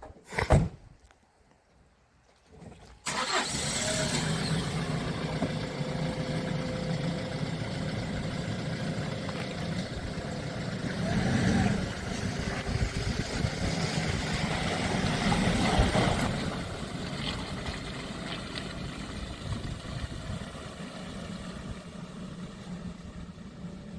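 A single thump just after the start, then a vehicle's engine starts about three seconds in and keeps running, swelling twice as it revs and pulls away.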